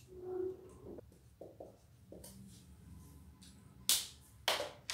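Sheets of paper being handled and swapped on a table: soft rustling, then three sharp paper snaps or slaps about half a second apart near the end.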